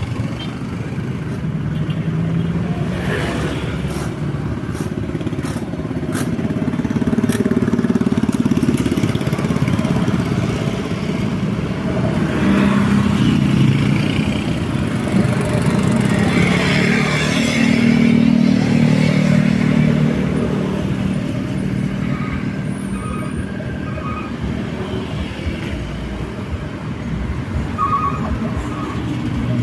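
Road traffic: motor vehicles passing one after another, engine noise and tyre noise swelling and fading as each goes by, with a few sharp clicks in the first several seconds.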